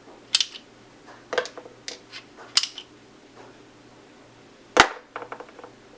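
Steel sockets clicking and clacking against a plastic socket rail as they are slid off it, a series of separate sharp clicks with the loudest about five seconds in, followed by a quick run of smaller ticks.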